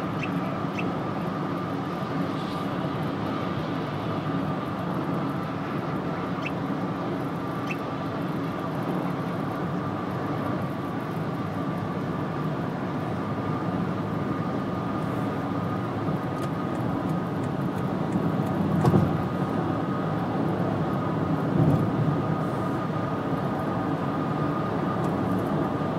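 Steady road and engine noise heard inside a car moving on a freeway, with a steady high whine above it and two brief louder swells about two-thirds of the way through.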